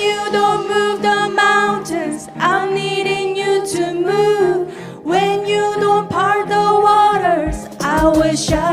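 Worship team singing a slow congregational song, voices holding long notes over a steady low accompaniment.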